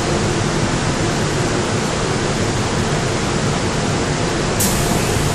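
Steady loud rushing noise inside a Korail Seoul Subway Line 3 electric train car, with a brief sharp hiss about four and a half seconds in.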